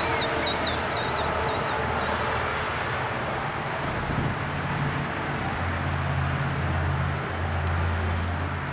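Outdoor background noise of vehicles and traffic. A run of short high chirps, about two a second, fades out within the first couple of seconds, and a low engine hum comes in about halfway through.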